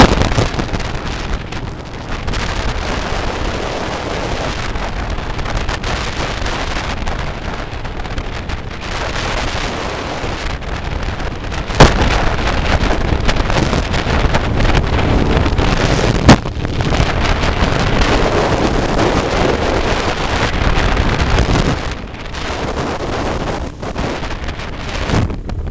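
Wind buffeting the microphone of a moving motorcycle, over the bike's running engine and road noise. Two brief sharp knocks come about halfway through, a few seconds apart.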